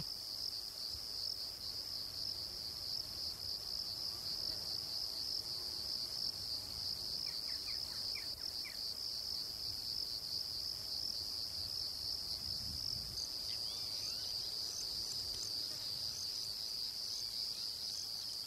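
A steady, high-pitched chorus of insects shrilling without pause, with a few faint short chirps about a third of the way in.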